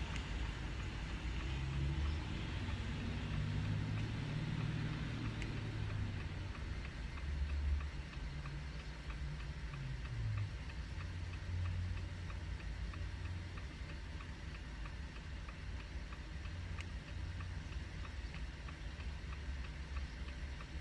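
Hazard-light flasher of a 2019 Jeep Compass ticking steadily in the cabin, over a low steady hum.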